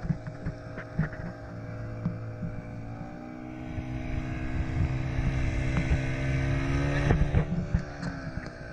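Motorboat engine running under way. About three seconds in its pitch and loudness rise as the throttle opens, and the rush of wind and water grows with it; near the end it eases back. Occasional short knocks sound through it.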